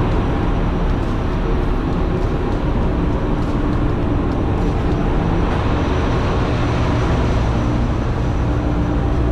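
Steady, loud drone of a ship's engine-room machinery heard in the workshop: an unbroken rumble with a low hum and no individual knocks or changes.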